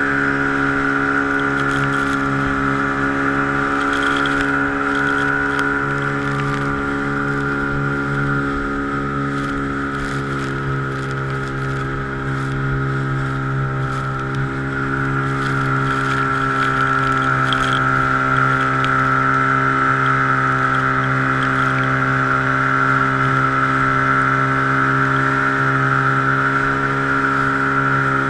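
Motorboat engine running steadily, getting slightly louder about halfway through.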